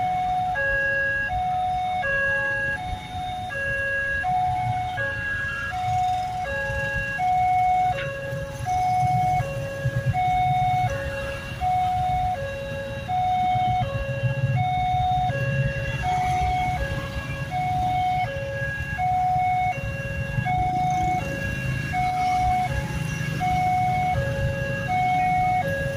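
Railway level-crossing warning alarm sounding continuously: a two-tone electronic signal alternating between a lower and a higher note, about one low-high pair a second, warning that a train is approaching. Motorcycle and truck engines idle underneath.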